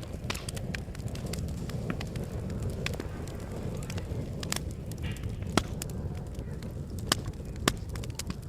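Wood fire crackling, with scattered sharp pops (the loudest a few seconds in), over a steady low rushing noise.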